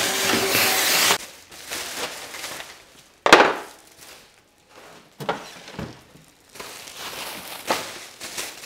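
Workshop vacuum running with a steady hiss, then switched off about a second in. A single sharp knock follows a couple of seconds later, then scattered rustling and handling noises from a plastic bin bag.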